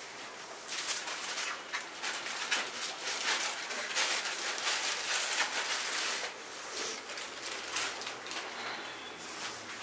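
Mourners weeping quietly: irregular sniffs and soft sobs, with light rustling close by.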